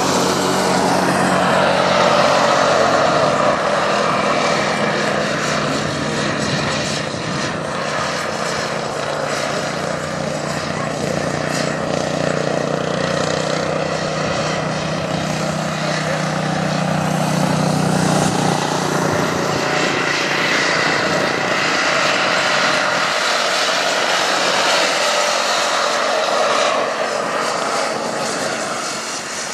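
Racing lawn tractor's small engine running at high revs as it laps a dirt track, its steady pitch fading near the end.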